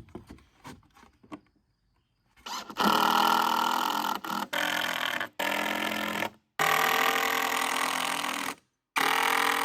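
A handheld power tool's motor, most likely a drill or driver sinking deck screws, runs in several short bursts of one to two seconds each. Each burst stops abruptly, and a few faint clicks come before the first.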